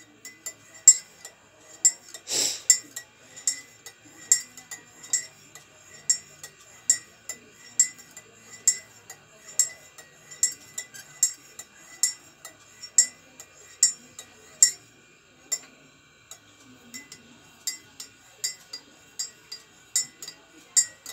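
Metal spoon clinking against the inside of a ceramic mug while stirring coffee with milk and sugar, an even rhythm of about two clinks a second. One louder, duller knock comes about two and a half seconds in.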